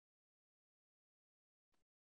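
Near silence, with a single very faint click near the end.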